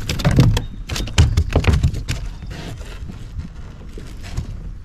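A hooked bass thrashing as it is brought into a plastic kayak: a quick flurry of splashes and knocks against the hull, easing off after about two seconds.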